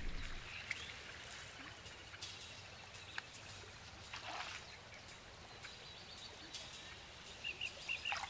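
Faint natural outdoor ambience: a soft steady hiss with scattered distant small bird calls, and a quick run of high chirps near the end.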